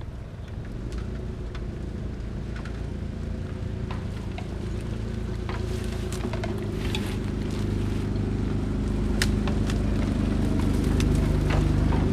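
Engines of off-road 4x4 SUVs driving slowly along a muddy track, a steady low running note that grows louder as the lead vehicle comes close near the end. Scattered light clicks and snaps sound over it.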